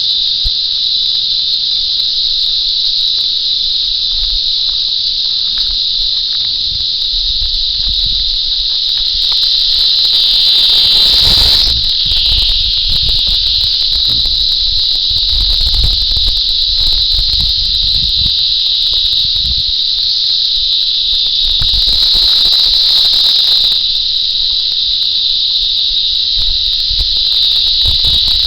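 A chorus of cicadas (jhingur) giving one loud, continuous high-pitched buzzing drone that holds steady throughout, with a faint low rumble underneath.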